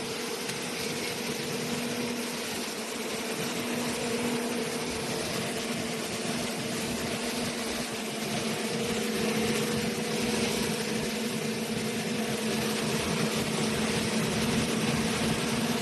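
Matsumoto 1105FE single-cylinder diesel engine running steadily under a load test, with a steady humming tone over the engine noise, growing slightly louder toward the end.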